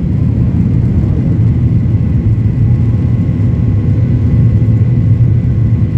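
Boeing 737-800's CFM56-7B turbofan engines at takeoff thrust, heard inside the cabin beside the wing: a loud, steady low rumble with a faint steady whine above it as the jet lifts off and climbs.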